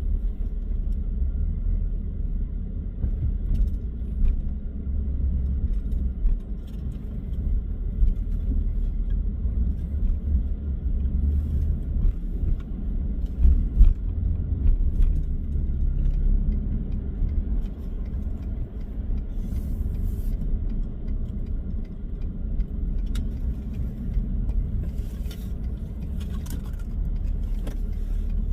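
Steady low road and engine rumble inside a moving car's cabin, with a few faint clicks and rattles.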